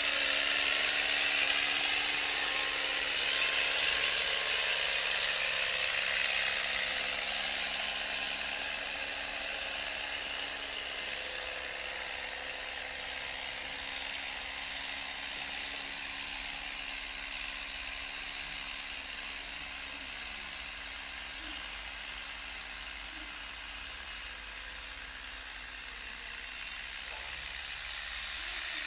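New Holland 4x4 tractor running steadily under load while pulling a disc harrow through dry soil. A steady engine hum sits under a broad scraping hiss from the harrow discs, and the sound fades over the first dozen seconds as the tractor pulls away.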